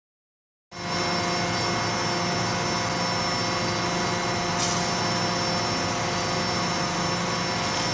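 Steady drone of forge-shop machinery around a hydraulic forging hammer, with several steady whining tones and no hammer blows, starting under a second in. A short hiss sounds about four and a half seconds in.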